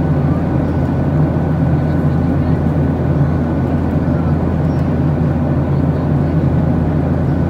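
Steady drone of a jet airliner in cruise heard from inside the cabin: low engine and airflow rumble with a faint steady whine above it.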